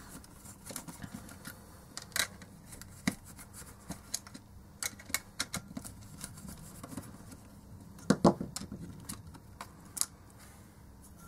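Scattered small clicks and taps of plastic parts and circuit board being handled as the keypad board of a Privileg 848 MD calculator is worked loose from its plastic case, with a louder cluster of knocks about eight seconds in.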